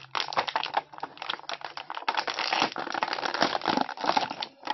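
Clear plastic action-figure packaging crinkling and crackling in quick, irregular clicks as the figure is handled and worked out of its plastic tray.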